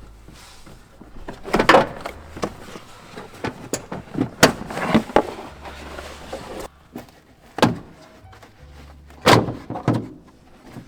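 Background music with a low, shifting bass, over which come several loud, irregular clunks and knocks, the strongest about halfway through and near the end.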